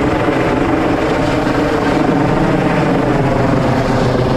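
U.S. Coast Guard MH-65 Dolphin twin-engine helicopter hovering during a hoist rescue, its rotors and turbines running loud and steady.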